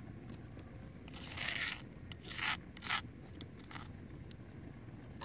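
A metal spoon scraping a few times as it moves pounded paste out of a stone mortar onto a ceramic plate. The strokes are faint and short and fall between about one and three seconds in.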